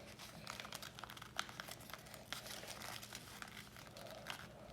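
Sheet of origami paper being folded and creased by hand: soft, scattered crinkles and small clicks of the paper.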